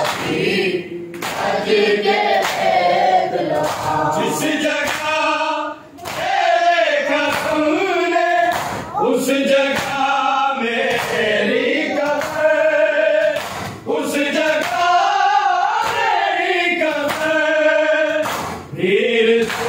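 Men's voices chanting a noha, a Muharram lament, together, with sharp slaps of hands on bare chests (matam) striking at a steady beat.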